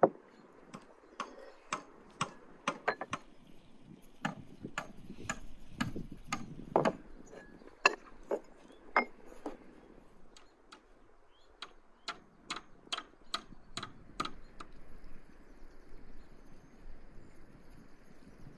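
Wooden spoon clicking and tapping irregularly against clay pots and a small clay spice bowl as spices are scooped and sprinkled. There is a sharp knock at the very start, and the tapping thins out and stops about 15 seconds in.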